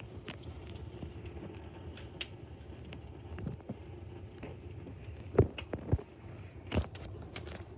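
Wood fire crackling, with irregular small snaps over a low steady rustle and a few louder pops about five and a half and seven seconds in.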